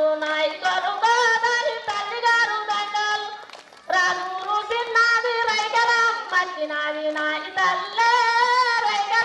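Bathukamma festival song in Telugu: high voices singing a melody over music, with a short break about three and a half seconds in.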